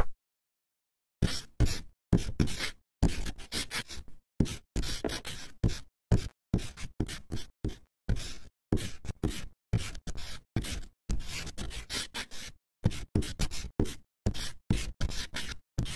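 Pencil-on-paper writing sound effect: a run of short scratchy strokes, about two or three a second with brief silent gaps, starting about a second in.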